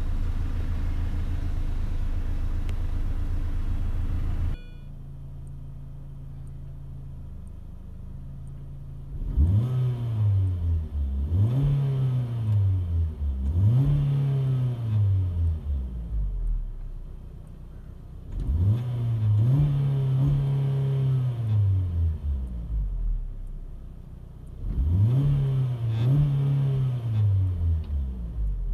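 First-generation Mini Cooper's 1.6-litre four-cylinder engine idling steadily, then revved in five throttle blips, each rising and falling in pitch, the fourth held for a few seconds.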